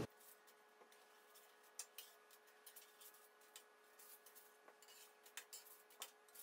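Faint, scattered scrapes and light clicks of a thin metal spatula against a baking sheet as baked bean patties are flipped over one by one, over a near-silent background with a faint steady hum.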